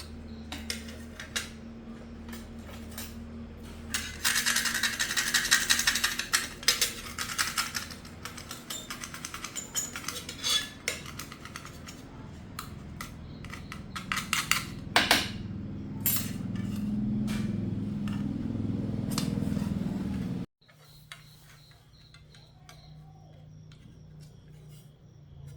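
Small metal parts and tools clinking and rattling as they are handled, with a dense burst of rattling a few seconds in. Near the end a steady hum runs for a few seconds and then cuts off suddenly.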